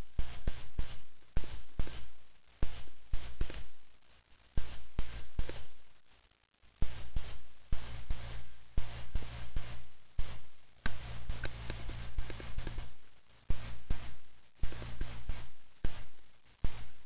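Rapid crackling clicks and pops over a low hum, coming in bursts with a few short drop-outs: noise in the recording itself, not a sound from the scene.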